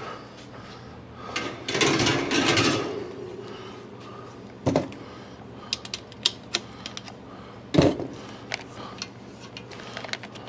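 Handling and screwdriver work on a wall-mount fan's metal motor housing and bracket: a short burst of rubbing noise about two seconds in, then scattered small clicks and two sharp knocks, near the middle and about three seconds later.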